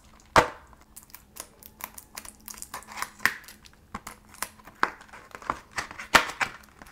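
Packaging of a lip gloss set being opened by hand: irregular crinkling and crackling, with a few sharper snaps, the loudest about half a second in and near the end.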